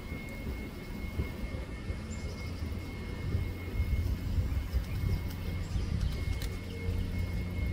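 Steady low outdoor rumble, uneven in strength, with a thin high steady tone running through it and a few faint high chirps.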